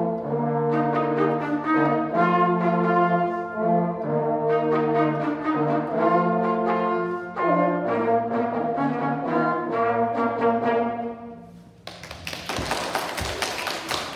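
A children's brass quartet of two trumpets, trombone and French horn playing a slow piece of held chords, finishing on a long chord about eleven seconds in. Applause follows near the end.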